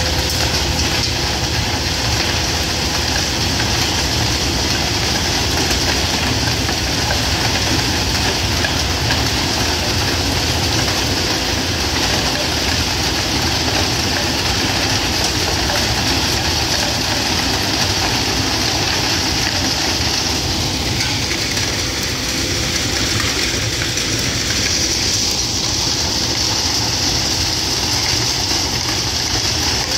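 Ballast regulator working along the track: its diesel engine runs steadily while the sweeper unit clears leftover ballast stones off the rails and sleepers, a constant hiss over the engine's low running.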